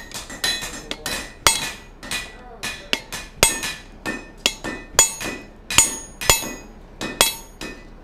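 Hand hammer striking a punch being driven into a red-hot 1-inch square steel bar on an anvil, punching the tool's eye hole. About two sharp, ringing blows a second, stopping just before the end.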